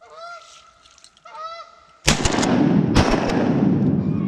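Two honks from a Canada goose, then a loud shotgun shot about two seconds in and a second shot about a second later, with the noise of the shots lingering to the end.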